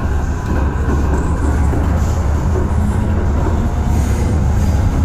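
MTR M-train electric multiple unit heard from inside the car while running: a steady low rumble of wheels on rail and running gear.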